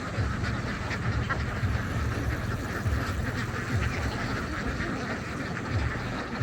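A large flock of ducks quacking, many calls overlapping into a continuous din.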